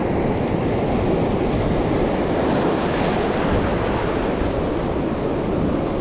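Steady rushing noise of wind on the microphone mixed with the sound of sea waves.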